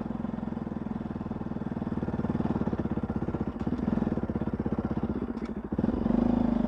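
Motorcycle engine running evenly as the bike is ridden slowly. The engine sound dips briefly about five and a half seconds in, then comes back louder.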